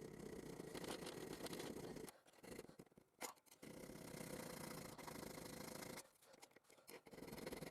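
Faint scraping in stretches of about two seconds, stopping twice, with one sharp click about three seconds in.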